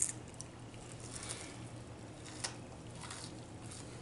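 Quiet eating sounds at a table: soft handling and chewing noises of fried fish, with a light click at the start and another about two and a half seconds in, over a faint low hum.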